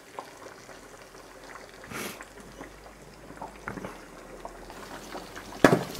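Pork belly pieces deep-frying in hot sunflower oil in a cast-iron Dutch oven: a steady bubbling sizzle with scattered crackles and one louder sharp pop near the end. The spitting comes from water still in the meat hitting the hot oil.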